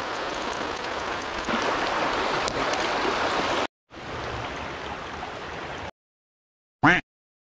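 Small creek flowing, a steady rush of water that cuts off abruptly twice. Near the end comes a brief, loud pitched sound.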